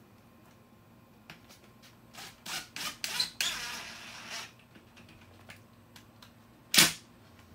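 Rubbing and scraping on a birch plywood floor sheet as it is worked into place by hand, with scattered light clicks, a rasping scrape lasting about a second a little past the middle, and one sharp knock near the end.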